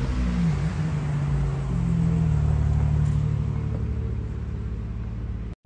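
Ferrari Monza's V12 engine running at low revs as the car pulls away, the note dipping and then climbing about two seconds in and easing off toward the end.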